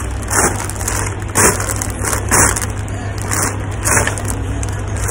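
Plastic snack packets crinkling and rustling as they are grabbed and shifted on a shelf, in about five short bursts roughly a second apart, over a steady low hum.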